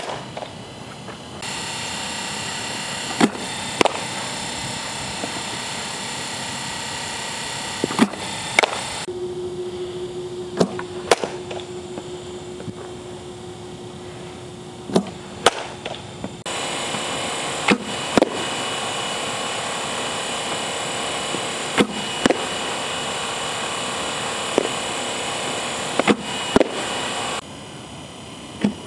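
Softball pitching machine firing pitches, each followed about half a second later by the sharp crack of the bat meeting the ball, seven times. Under them runs a steady hum that shifts in level and pitch a few times.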